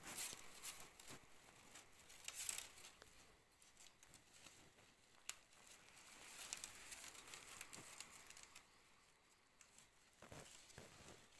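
Stiff split plant strips rustling, scraping and clicking against one another as gloved hands weave them into a pot trivet. The sound is faint, with a few louder crackles in the first few seconds.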